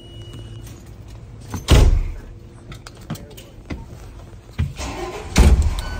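Fire engine cab doors slammed shut twice, one heavy thump a little under two seconds in and another near the end, with a few lighter knocks between, over the engine's steady low idle.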